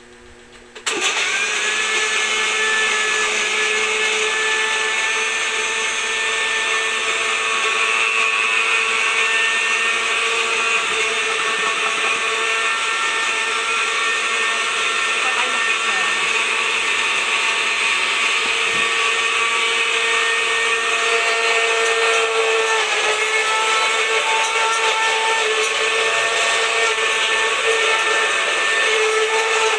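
Countertop electric blender switched on about a second in and running steadily with a whine, blending fruit, papaya seeds and water into juice.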